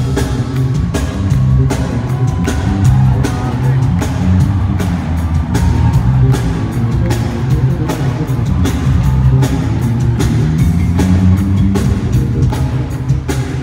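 Live electric bass and drum kit playing a fast solo together over an arena sound system: quick bass notes under busy, rapid drum hits.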